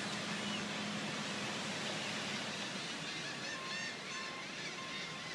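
Steady wind blowing across the phone's microphone, mixed with surf from the beach. In the second half a few quick high chirping bird calls come through, along with a faint high beep that sounds on and off.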